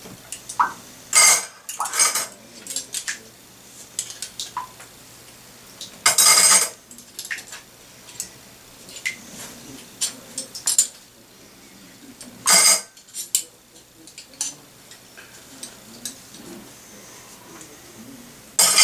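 Metal cutlery and a stainless sink strainer clinking and clattering as they are handled, dried with a cloth towel and set down: a handful of louder clatters a few seconds apart with lighter clinks between.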